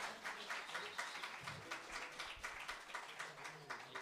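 Light applause of handclaps, fading out gradually.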